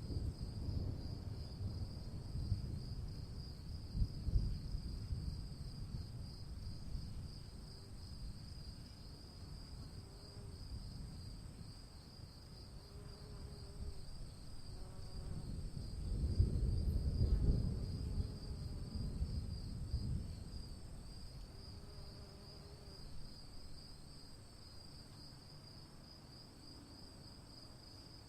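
Crickets trilling steadily under distant thunder rumbling from a storm, with the longest, loudest roll of thunder about two-thirds of the way through, then fading.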